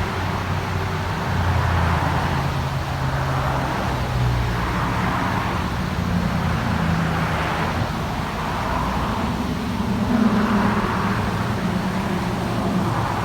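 Road traffic: engines humming with tyre noise that swells and fades as vehicles pass, about every couple of seconds.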